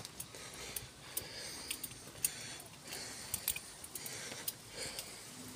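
Footsteps scuffing along a concrete path at walking pace, a soft gritty step about every 0.7 seconds, with scattered small sharp clicks.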